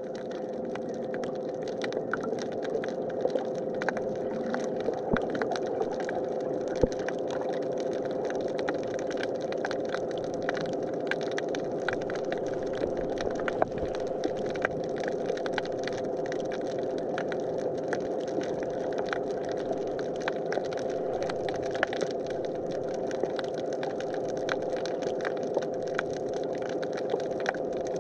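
Underwater sound on a rocky coral reef: a steady hum with a constant mid-pitched tone, under a dense, irregular crackle of sharp clicks.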